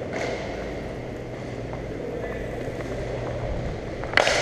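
Steady rumble of skating across a hockey rink, picked up close on a camera worn by a skater. A single sharp crack comes near the end.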